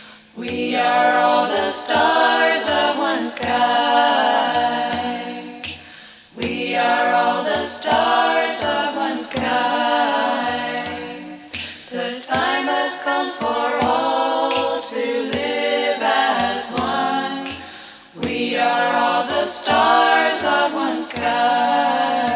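Background music: an a cappella vocal group singing in phrases of a few seconds, with short low bass notes repeating underneath.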